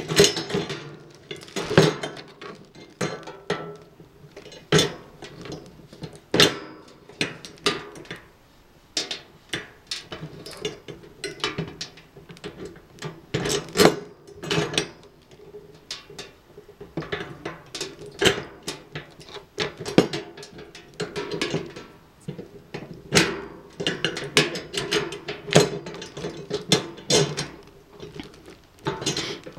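Irregular clinks, knocks and rattles of a metal mesh cart basket and its bolts being handled and fitted together during assembly.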